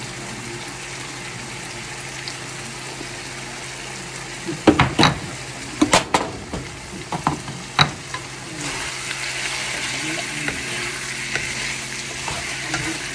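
Food sizzling in a frying pan. A utensil knocks and scrapes against the pan in a run of sharp clicks between about four and a half and eight seconds in, and the sizzle gets louder after that.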